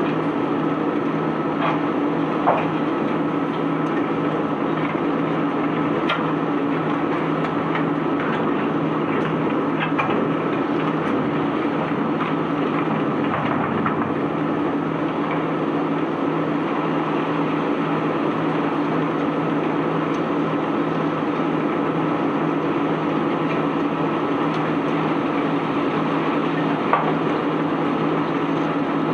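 Unloading machinery running with a steady hum, with a few scattered knocks and clatters of cobblestones as the cargo is handled.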